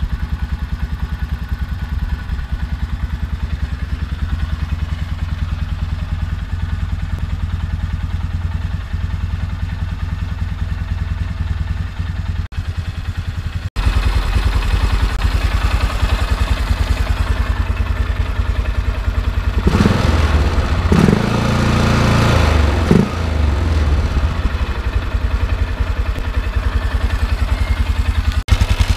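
Polaris Sportsman 500 ATV's single-cylinder four-stroke engine idling with an even, rapid exhaust pulse. It gets louder about halfway through and is briefly revved about two-thirds of the way in.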